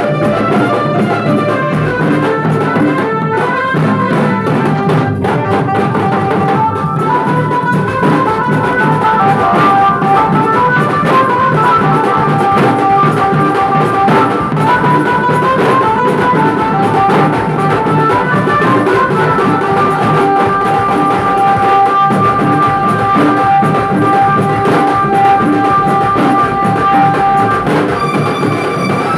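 A Bengali wedding band playing: large stick-beaten dhol drums pounding a fast, dense rhythm, with a loud melody line over them that settles into long held notes in the last third.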